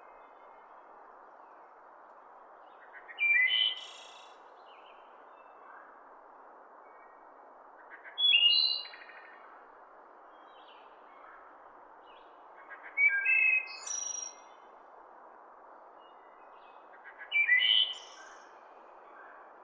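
Wood thrush singing: four loud song phrases about every four to five seconds, with soft notes between them, over a steady background hiss.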